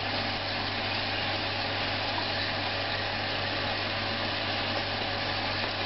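Steady motor hum under an even hiss, unchanging throughout.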